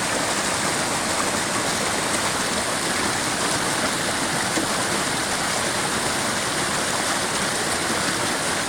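Water of a stream rushing and splashing steadily.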